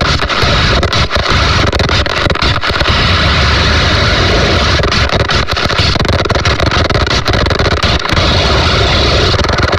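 Loud, continuous distorted noise with no clear pitch or beat, cutting out briefly for an instant several times, from a live stage performance.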